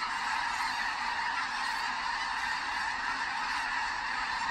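A huge flock of snow geese calling all at once, their many voices overlapping into a steady, unbroken din.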